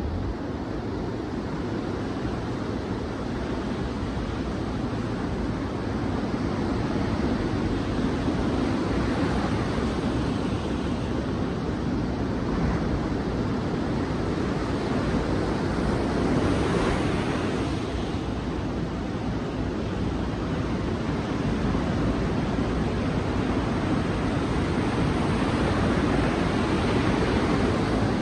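Ocean waves breaking and washing on a beach, a steady surf noise that swells and eases with each wave, a larger surge about sixteen seconds in. Some wind on the microphone.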